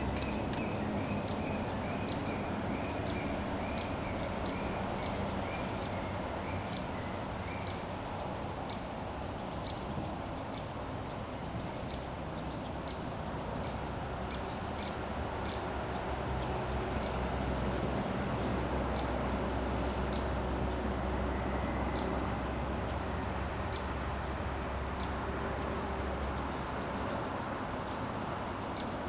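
Small birds chirping: short high chirps every half second or so, with a run of lower repeated notes that fall slightly over the first several seconds, over a steady low rumble and hiss.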